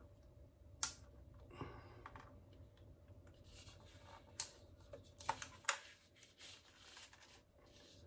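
Faint plastic handling noise from an EZVIZ CB8 outdoor camera being worked by hand to open up its USB charging port: a scattering of sharp clicks and light rustling, the clearest clicks about four to six seconds in.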